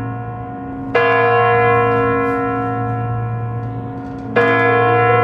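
A deep bell struck twice, about three and a half seconds apart, each strike ringing on with many overtones over a steady low hum, as part of a music soundtrack.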